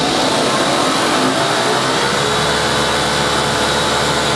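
The spindle of a Lagun KMC 717 CNC knee mill runs with no tool in it, and its overhead drive belt is heard with it. The speed shifts over the first two seconds as the RPM is brought down, then it runs steadily.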